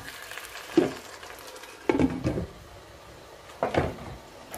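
Spatula stirring and scraping potatoes and tomatoes frying in oil in a pot, over a steady low sizzle, with three short scrapes about a second apart. Near the end a glass lid is set down on the pot.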